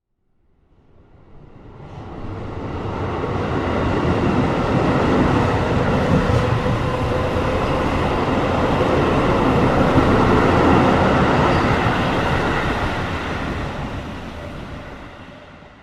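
Train running on rails: a steady rumble with a faint whine in it, swelling up over the first few seconds and dying away near the end.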